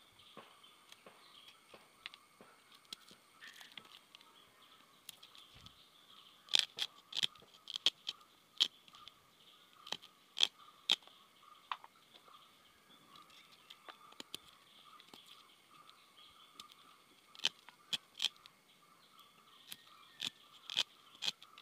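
Sharp crackling clicks of dry, papery jackfruit seed husks being cracked and peeled off by hand with a small knife, coming in irregular clusters, thickest about six to eleven seconds in and again near the end.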